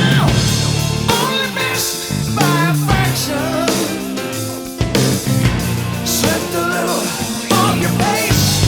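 Background rock song with a singing voice over guitar and drums.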